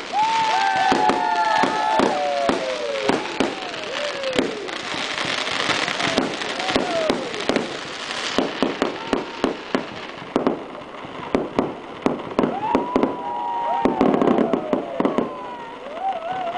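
Fireworks display: a rapid, irregular string of bangs and crackling bursts.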